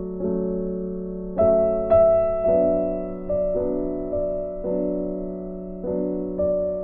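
Background piano music: slow, sustained chords with new notes struck every second or so, the brightest about one and a half seconds in.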